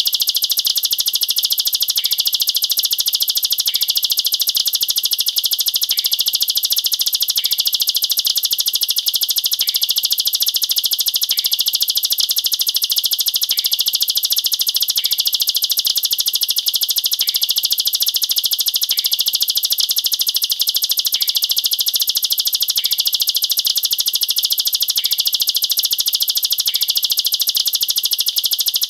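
Plain prinia (ciblek sawah) singing a continuous, very rapid stream of sharp high notes, the close-packed 'nembak rapat' rapid-fire song.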